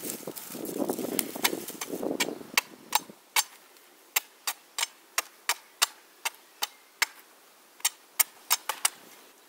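A large knife chopping at a dry stick held in the hand: a run of sharp, separate strikes, about two to three a second, starting after a low rushing noise in the first few seconds.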